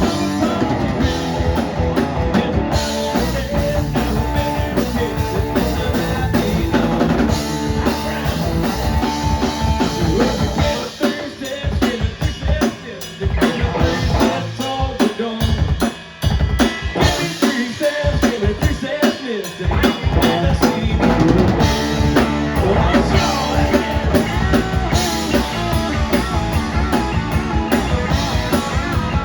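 Rock band playing live, with drum kit, bass and guitar. From about 11 s in the guitar and bass mostly drop out for a drum-led break. The full band comes back in around 20 s in.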